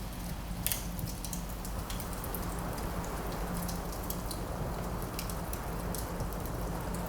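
Wood fire crackling with scattered sharp pops, over a steady rush of wind.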